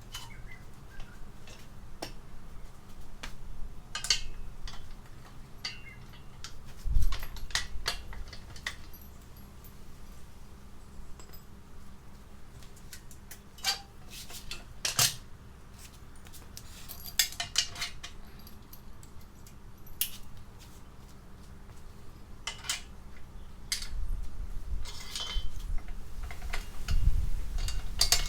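Scattered metallic clinks, clanks and taps of tools, bolts and steel parts being handled while an engine block is mounted on an engine stand, with a few dull thumps, one about seven seconds in and more near the end.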